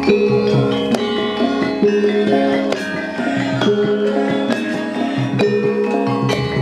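Traditional Javanese ensemble music: struck, ringing pitched percussion playing a busy melodic line over hand drums.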